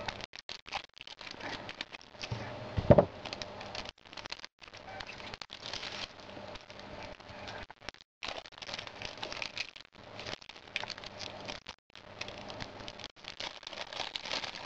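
Packaging crinkling and rustling as it is torn open to unwrap a Rubik's cube, with one loud thump about three seconds in.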